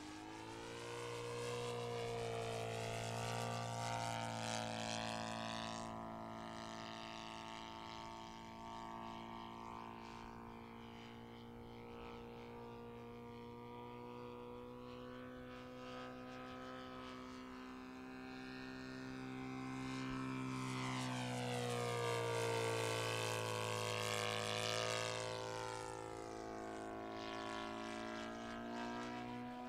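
Saito FG-57TS twin-cylinder four-stroke petrol engine and propeller of an RC aerobatic biplane in flight, a steady droning note that shifts in pitch and loudness as the plane manoeuvres. It is louder for the first few seconds and again about two-thirds of the way through.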